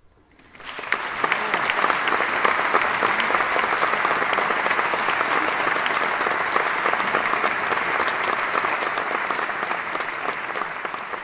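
Audience applauding at the end of a choral performance: the clapping starts about half a second in, swells quickly, holds steady and eases slightly near the end.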